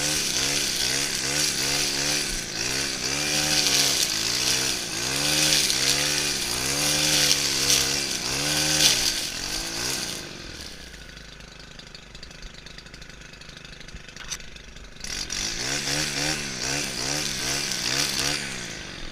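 Stihl FS 131 brushcutter's 36cc engine revved up and down in quick repeated pulses of the throttle, dropping back to idle about halfway through, then revving in pulses again for a few seconds before easing off near the end.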